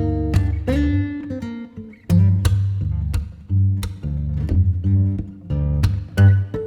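Background music: a plucked and strummed acoustic guitar tune over a steady bass line.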